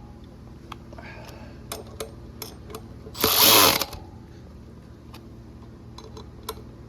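A hand tool running a bolt down on a dirt bike's rear sprocket in one loud burst lasting about half a second, a little past the middle, with light metallic clicks of parts being handled around it.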